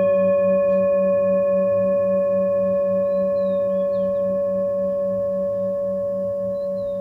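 A singing bowl rings on after a single strike, several clear overtones sustaining together with a pulsing waver in the low tone and slowly dying away.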